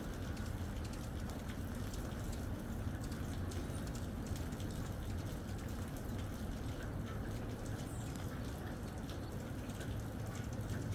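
Steady rain falling, with a constant hiss and the light tick of raindrops pattering on surfaces.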